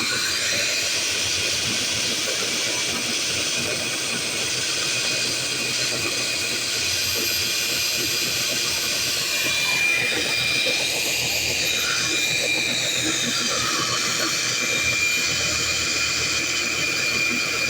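Electric core drill running steadily with a high motor whine, boring into a concrete roof slab.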